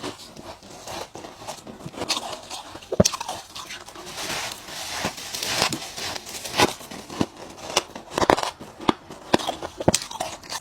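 Ice being bitten close up: sharp, irregular crunches, a dozen or more, some louder cracks among softer crackling.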